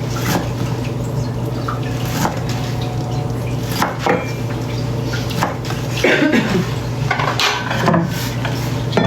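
Kitchen clatter: irregular knocks and clinks of a knife and utensils on a cutting board and dishes while food is being chopped, over a steady low hum.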